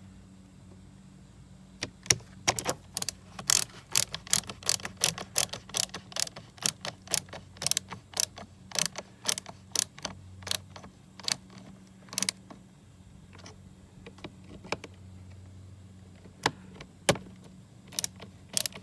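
Rapid run of small sharp metal clicks, about two a second, from a hand tool driving the small star-pattern screws into a car side-mirror motor assembly; the clicks thin out after about twelve seconds.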